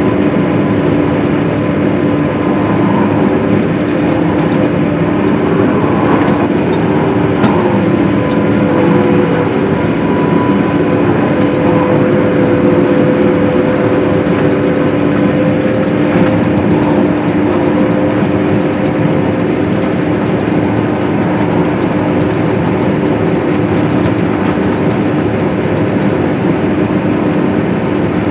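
Case IH swather (windrower) running steadily while cutting hay: a constant engine and machinery drone with a few steady humming tones held through it.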